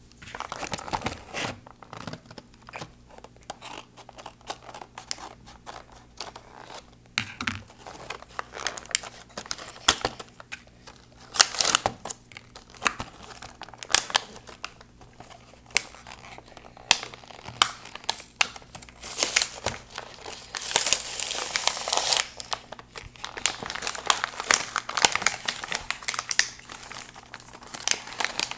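Packaging crinkling, rustling and tearing as it is cut and pulled open by hand, with irregular crackles throughout and a few louder stretches of rustling.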